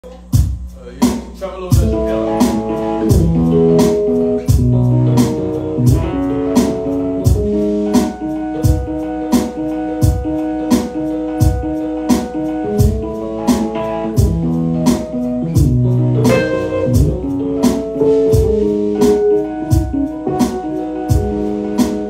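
Electric bass and hollow-body archtop electric guitar playing together, held melodic notes over a steady clicking beat.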